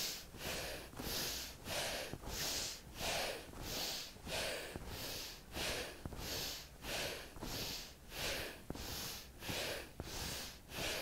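A woman breathing rapidly through the nose, quick in-and-out sniffing breaths in a steady rhythm of about two a second.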